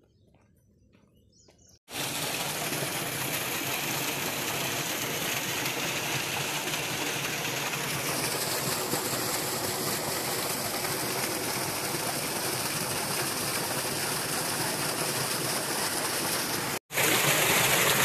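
Water gushing steadily from a large pipe outlet into a concrete tank, starting abruptly about two seconds in. After a brief break near the end it resumes louder.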